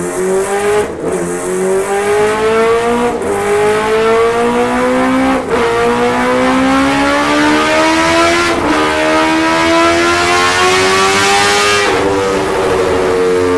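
Kawasaki Ninja H2R's supercharged inline-four engine on a dyno pulling hard up through the gears. The pitch rises steadily and drops sharply at each of about five upshifts, then holds high near the end.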